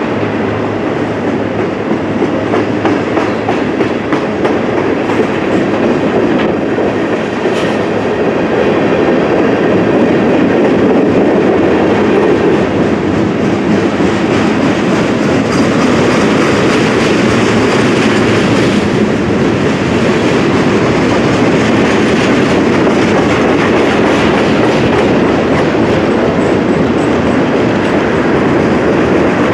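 A long freight train rolling past close by, with a steady rumble and clatter of wheels on the rails that gets a little louder about ten seconds in.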